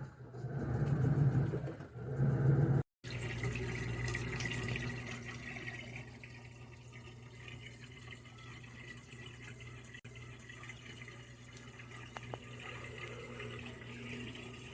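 A louder low rumbling noise for about three seconds, then a brief cut. After it comes a steady sound of running water with a low steady hum underneath.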